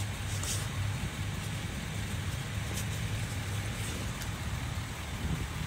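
A nearby vehicle engine idling steadily with a low hum. Faint rustling of tools and bag fabric being handled comes and goes over it.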